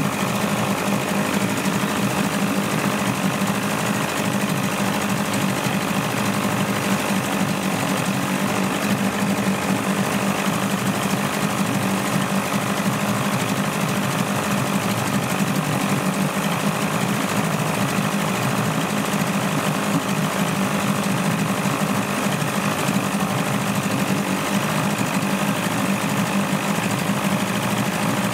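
Evinrude 35 hp two-cylinder two-stroke outboard running steadily with its cowling off, a fast, even mechanical clatter that holds the same speed throughout.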